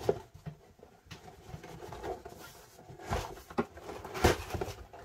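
Cardboard lid of a model kit box being worked loose and lifted off: rubbing and scraping of cardboard with several knocks, the loudest a little past four seconds in.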